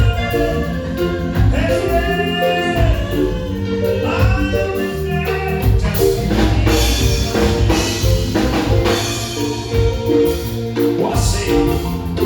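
A live band playing a song, with a singer's voice over bass and drums in the first half. The voice drops out about halfway through while the band plays on.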